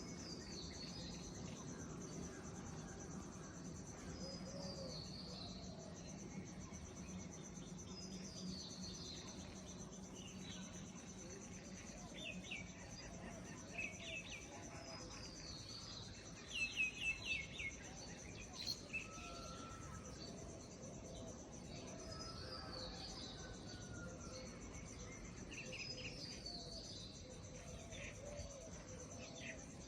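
Several small birds chirping and singing with short falling chirps and whistles over a steady high insect drone; the loudest moment is a quick run of chirps about halfway through.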